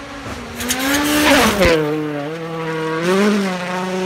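Rally car passing at speed on a gravel road. Its engine note drops sharply as it goes by, with a loud burst of gravel and tyre noise. The engine then carries on at a lower pitch and revs briefly once more near the end.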